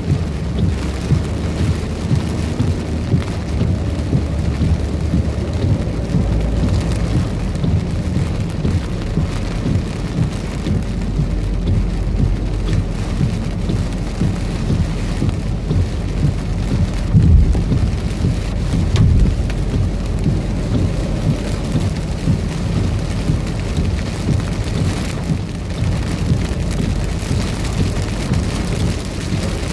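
Heavy rain pouring down in a severe thunderstorm, a steady hiss over a low rumble, with two brief louder low swells a little past the middle.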